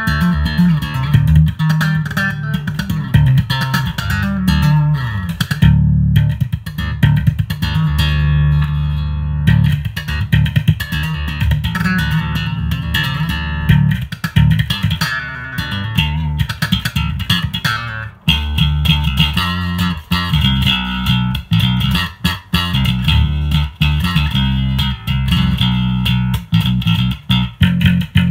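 Ibanez ATK 100 electric bass played through an amp in passive mode, a continuous run of plucked notes on old, dead strings, with a brief break about eighteen seconds in.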